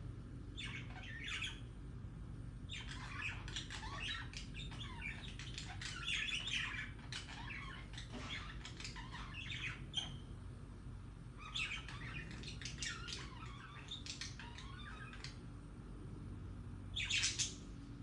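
Budgerigars chattering and warbling in rapid bouts, the contented courtship chatter of pet budgies, with one sharp, loud squawk near the end. A steady low hum lies underneath.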